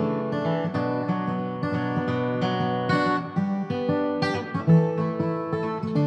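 Background music: strummed acoustic guitar.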